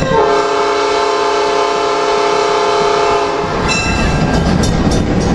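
Diesel locomotive air horn sounding one long multi-note blast for a road crossing, cutting off sharply about three and a half seconds in. The train's running rumble and wheel clatter carry on after it.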